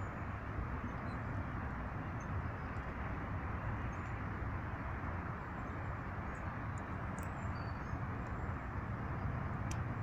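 Steady outdoor rumble and hiss, with a few faint, very short high bird chirps scattered through and a single sharp tick near the end.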